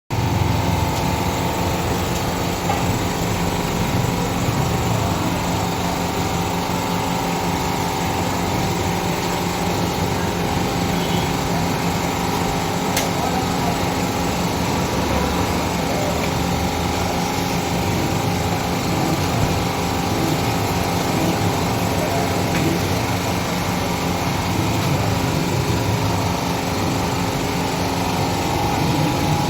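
A small engine or motor running steadily at an even pitch.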